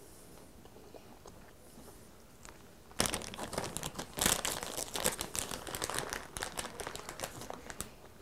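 Plastic snack bag of chocolate-covered raisins crinkling as a hand rummages in it for raisins. It starts suddenly about three seconds in as a dense run of rapid crackles, loudest just after it begins, and carries on to the end.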